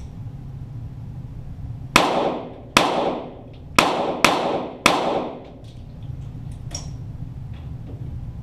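Five shots from .22 Walther GSP target pistols, fired in an uneven string over about three seconds, each crack trailing off in a long echo.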